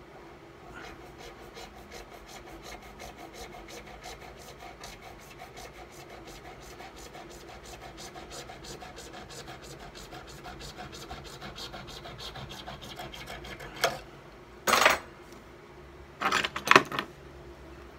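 Jeweler's saw blade cutting through green jewelry carving wax on a wooden bench pin, rasping in rapid, even strokes. The sawing stops, followed by a click and a few short, loud bursts of noise near the end.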